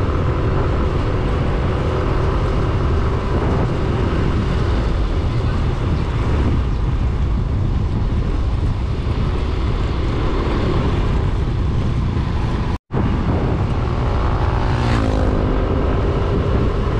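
Running engine and road and wind rumble of a moving vehicle, heard from on board. The sound cuts out for an instant about thirteen seconds in, and the engine note rises briefly near the end.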